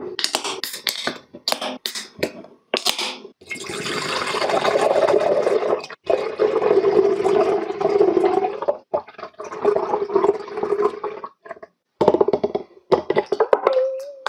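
Canned royal milk tea poured into a tall glass mug: a long continuous splashing pour in three runs, one for each can, with short breaks between them. Before the pouring comes a run of sharp clicks and knocks. Near the end, more clicks and knocks as ice balls are lifted into the mug with metal tongs.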